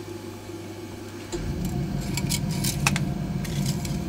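Metal clicks and rattles of an engine oil dipstick being drawn out of its tube and handled. About a second in, a steady low machine rumble starts up and keeps running.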